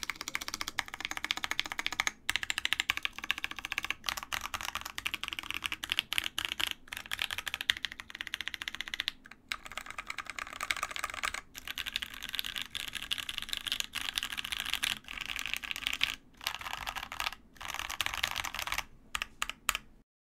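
Scarlet TKL custom mechanical keyboard, top-mounted with a full aluminium plate, Pewter switches lubed with GPL 105 oil and JTK keycaps, being typed on: a dense run of keystrokes and modifier key presses, turning into fast two-handed random key mashing about eight seconds in. The typing stops abruptly near the end.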